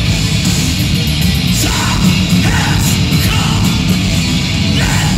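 Heavy metal band playing live, with distorted electric guitars, bass and pounding drums, and vocals coming in short phrases from about two seconds in.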